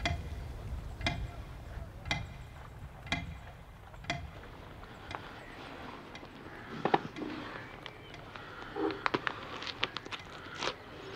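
Pendulum wall clock ticking about once a second, each tick a sharp click with a short ring, over a low hum. After about five seconds the ticks give way to irregular soft clicks and rustles of hands handling something small and paper, with one louder click about seven seconds in.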